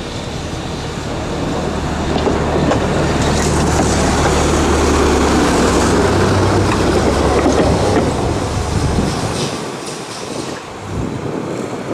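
Tram running along the rails, wheels rumbling with a clickety-clack over the track, swelling in the middle and easing near the end. A steady low hum runs underneath and stops about nine seconds in.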